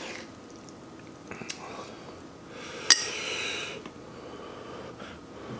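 A metal fork and a wooden spoon clinking and scraping as they stir noodles in a foam takeout container, with one sharp clink about three seconds in followed by about a second of hiss.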